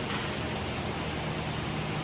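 Steady background hiss with a faint low hum, typical of a gym's ventilation or air-conditioning fans.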